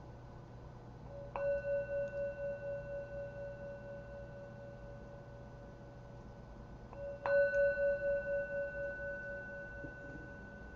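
Meditation bell struck twice, about six seconds apart. Each strike rings on as a steady tone with a gentle pulsing waver that slowly fades, marking the end of the sitting.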